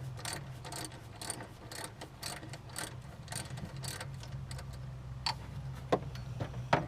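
Socket ratchet clicking steadily, about three clicks a second, as it backs out a pulley's retaining bolt, with a couple of sharper knocks near the end.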